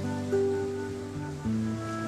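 Background music of slow held notes sounding together as chords, changing about a third of a second in and again about a second and a half in.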